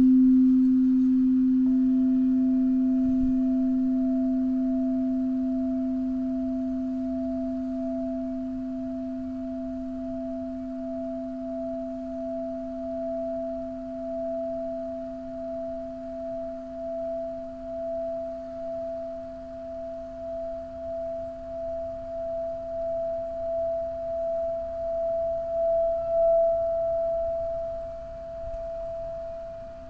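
Singing bowls ringing in pure, steady tones. A low tone carries on and slowly fades, and about two seconds in a higher tone joins it, wavering in loudness about once a second.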